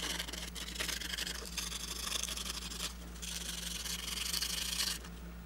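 Fine sandpaper rubbing against the metal terminal posts of a BMW gauge-cluster temperature gauge, scouring off corrosion. It is a scratchy hiss in two stretches with a short break about halfway, stopping shortly before the end.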